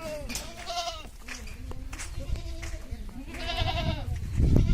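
Goats bleating: a few short calls near the start and a longer, stronger bleat about three and a half seconds in, with a loud low rumble just before the end.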